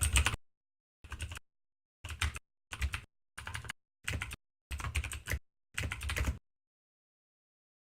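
Rapid computer-keyboard typing clicks in short bursts, eight in all, separated by dead silence and stopping about six and a half seconds in. The strongest burst is the first.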